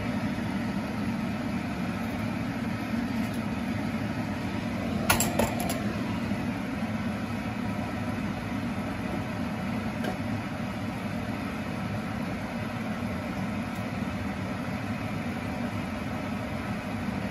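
Chicken pieces and chicken livers cooking in a frying pan, a steady sizzle. A few sharp clicks come about five seconds in.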